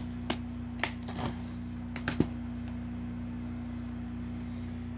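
A plastic DVD case being handled and closed: a handful of sharp clicks and knocks in the first couple of seconds, over a steady low hum.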